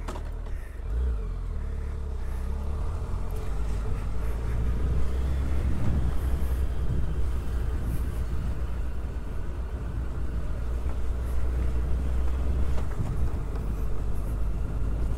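Motorcycle riding along a rough dirt and gravel road: engine running steadily under a heavy low rumble of wind and road noise, a little louder after about four seconds.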